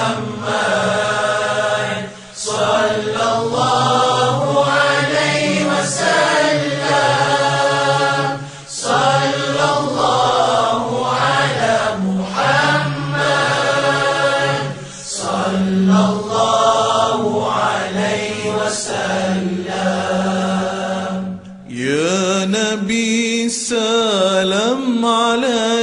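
Voices chanting an Arabic selawat in praise of the Prophet, in long, wavering phrases with short breaths between them, over a steady low tone. Near the end a single voice carries on with a wide vibrato.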